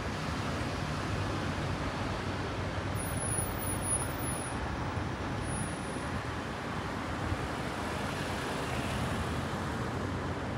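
Steady city street traffic noise, with cars driving past close by.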